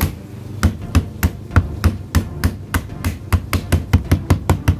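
Hammer blows, a run of sharp strikes that quickens from about three to about six a second.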